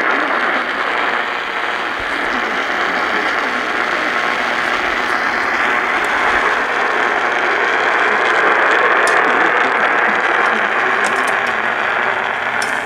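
Radio static: a loud, steady hiss of noise with scattered crackles, and no speech over it.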